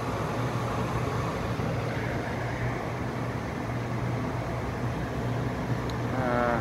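Trane gas furnace running with its burners lit: a steady hum and rush from the inducer fan and burner flames.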